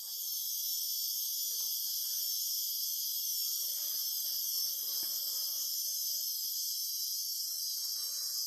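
A steady, high-pitched insect chorus droning without a break, with fainter, irregular lower sounds beneath it, strongest around the middle.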